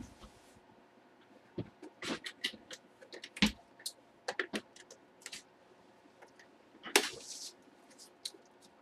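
Packaging being handled by hand: an irregular run of sharp clicks, taps and crinkles, with a longer rasp about seven seconds in.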